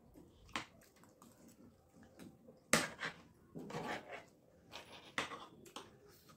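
Eating sounds: spoons clicking and scraping against plates as mouthfuls of dahi puri are scooped up and eaten, a scattering of short clicks, the sharpest about three seconds in.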